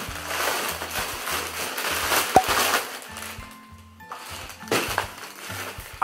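Packaging crinkling and rustling as a hair dryer brush is unwrapped by hand, with one sharp click a little over two seconds in and a few more rustles near the end. Background music plays underneath.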